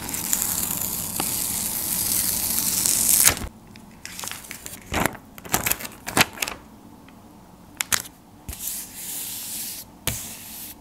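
Paper sticker being peeled slowly off its backing: a long tearing hiss that grows louder over about three seconds and stops abruptly. Then a few short crinkles and taps of handled paper, and a softer stretch of hands rubbing the sticker flat onto a paper page near the end.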